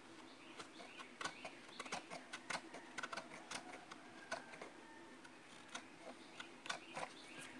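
Irregular series of sharp clicks and snips from a hand tool cutting and trimming a repaired plastic scooter body panel, busiest in the middle of the stretch.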